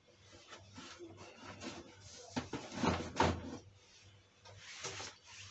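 Irregular knocks, scrapes and rustling as objects are handled and moved about by hand, loudest a little past halfway, with another knock near the end.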